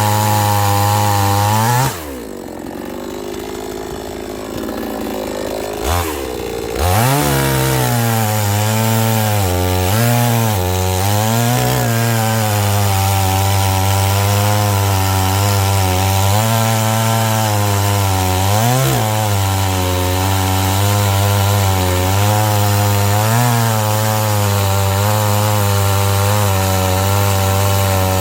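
Chainsaw running at high revs while cutting firewood logs. About two seconds in it drops to idle for several seconds, then opens up again, its pitch dipping briefly several times as the chain bites into the wood.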